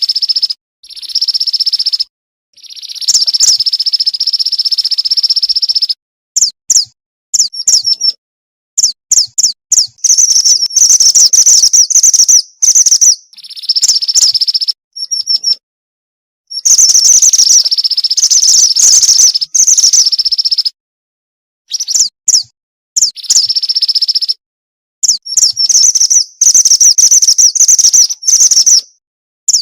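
Female mountain mantenan bird calling, a lure call for males: high, rapid chirping trills lasting a few seconds each, mixed with short runs of separate chirps, broken by abrupt silent gaps.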